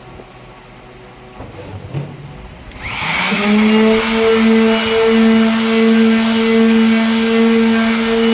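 Electric sander switched on with a click about three seconds in, spinning up with a brief rising whine and then running at a steady pitch. A few faint handling knocks come before it starts.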